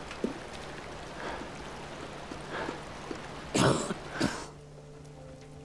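A man gives a short breathy laugh, two quick huffs about three and a half seconds in, over the steady rush of a river. Near the end the river sound cuts away, leaving soft held music tones.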